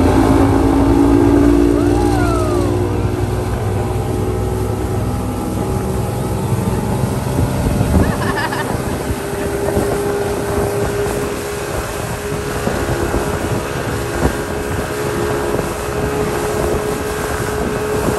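Speedboat's outboard motor running steadily at towing speed, with the rush of the churning wake and wind on the microphone.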